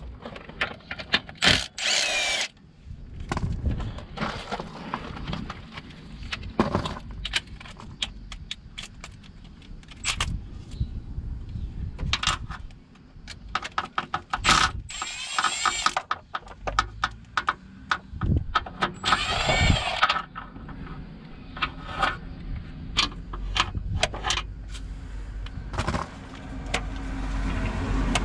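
Milwaukee cordless impact wrench run in three short bursts on bolts at the front of the engine, among clinks and knocks of metal tools and parts.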